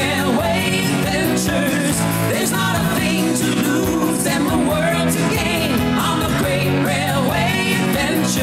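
Background music: a song with a singing voice over held instrumental notes and a steady beat.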